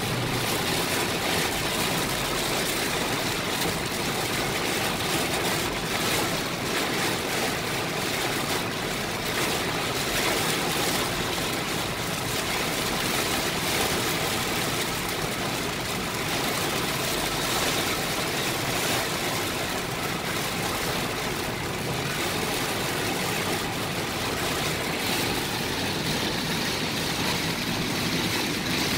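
Heavy rain pounding on a moving car and its tyres hissing through standing water, a steady dense noise heard from inside the cabin.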